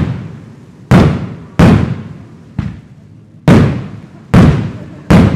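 Aerial fireworks bursting in quick succession: six loud bangs, about one every 0.8 s, each trailing off in a rolling echo, the third one weaker than the rest.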